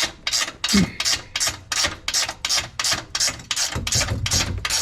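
Hand ratchet clicking in quick, even strokes, about four or five a second, as it backs off the exhaust Y-pipe bolts.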